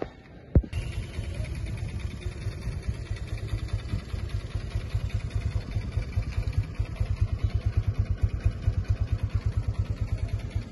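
Hero Ignitor 125's single-cylinder four-stroke engine idling with a steady, even exhaust beat, after a short thump about half a second in.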